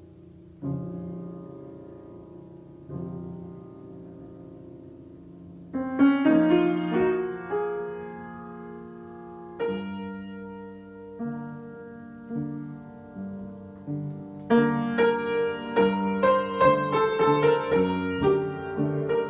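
Solo piano improvisation: a few slow, soft chords left to ring, then louder, fuller playing from about six seconds in. Near the end it turns busy, with many quick notes over the chords.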